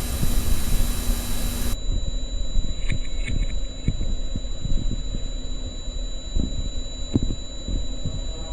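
Burst of loud television static lasting about a second and a half, cutting off to a steady high-pitched whine with a second, higher tone, over a low hum with scattered crackles and pops: the sound of a distorted analog broadcast signal.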